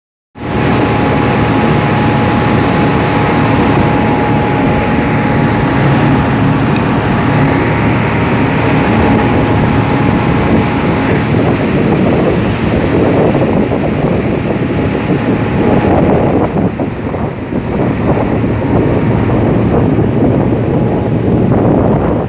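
Steady drone of a ship's engine, with wind buffeting the microphone and the wash of the sea against the hull. A thin steady whine runs under it and stops about sixteen seconds in.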